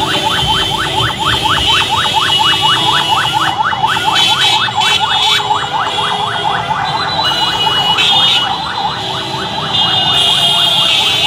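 Electronic siren in a fast yelp, rapid rising sweeps about six a second, over the noise of a large street crowd; the siren fades out about seven seconds in.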